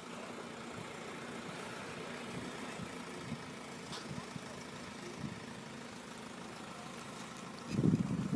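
Class 166 diesel multiple unit idling at the station with a steady engine hum. Near the end, bursts of wind buffeting hit the microphone.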